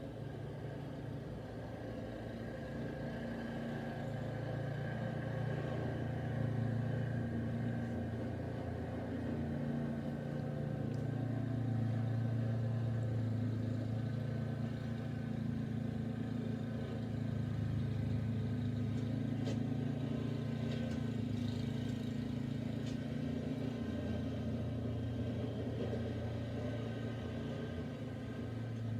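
A motor vehicle's engine running steadily with a low hum. It grows a little louder over the first several seconds, then holds.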